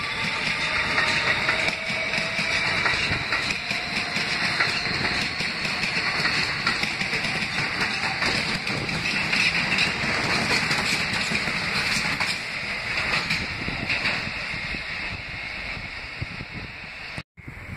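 New York City subway train of R160 cars running along the platform: a steady rumble of steel wheels on the rails with a hiss over it, easing a little near the end, then cutting out for an instant.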